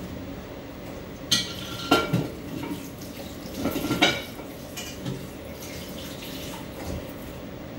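Dishes and utensils clattering as they are handled: a few sharp clinks and knocks about a second and a half, two and four seconds in, with lighter ones after, over a steady low hum.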